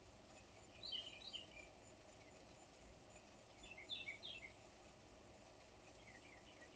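Faint bird chirping: three short bursts of several quick high notes, about a second in, around four seconds in and near the end, over a steady low hiss.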